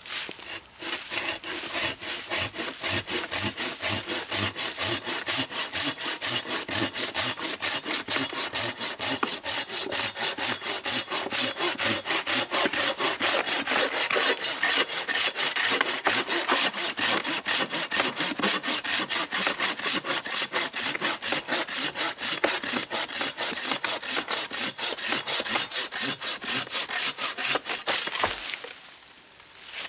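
Silky Katanaboy 500 folding pull-saw cutting through an 11-inch log in fast, even strokes, the teeth biting on the draw stroke. The sawing stops near the end as the cut goes through.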